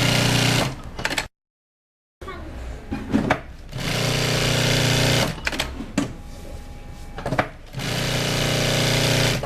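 SGY2-0303D4 walking-foot sewing machine stitching in three steady runs, the first under a second and the other two about a second and a half each, with short clicks between the runs. About a second in, the sound drops to dead silence for nearly a second.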